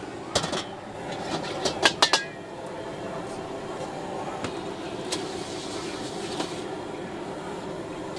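A metal ladle clanks against an iron wok a few times in the first couple of seconds, loudest around two seconds in, with a short ring after. A steady hiss from the gas burner and the hot wok follows.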